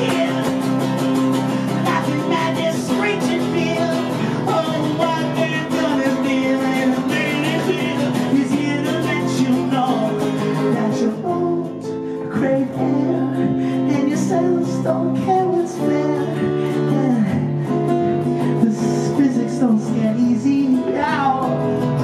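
A man singing with a strummed acoustic guitar, played live.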